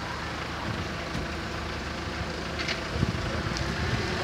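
Steady hiss of rain and running water on a flooded street, with a low rumble underneath and a single knock about three seconds in.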